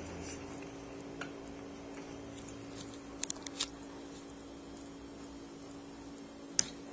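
Quiet kitchen room tone with a steady low hum. A few small clicks come about a second in and again in a quick cluster midway, and one sharper, louder click comes near the end.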